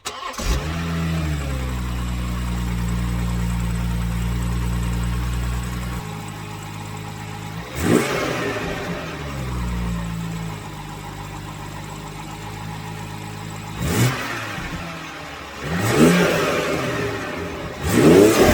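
BMW M140i's turbocharged 3.0-litre straight-six, fitted with an aftermarket MST intake, starting up and settling to a steady idle. It is then blipped four times in the second half, each rev rising and falling quickly.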